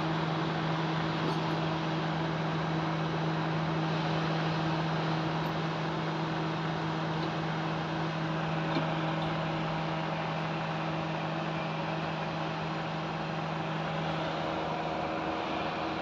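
Car engine idling with the air conditioning switched on: a steady low hum under an even rushing noise. The low hum weakens near the end.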